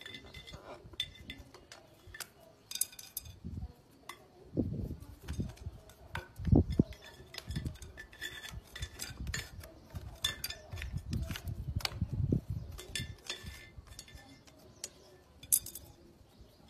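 A black-and-white bird working a stick and its beak against a glass jar on concrete, making light irregular clinks, taps and scrapes of glass and wood, with a few dull low knocks mixed in.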